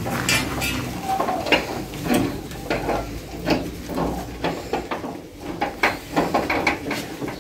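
Irregular metallic clanks, knocks and rattles as a primed metal truck grille is worked into place on the front of a Scania 141 cab, rattling against its mounts.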